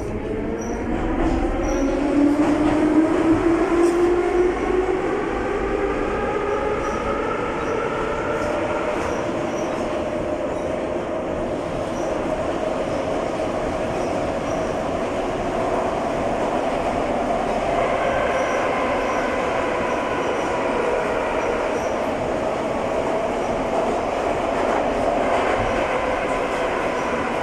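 Ezh3RU1 metro car's traction motors and gearing whining as the train pulls away, heard inside the car. The whine rises in pitch over the first eight seconds or so, then holds steady over continuous wheel and track rumble. A fresh rising whine begins about two-thirds of the way through.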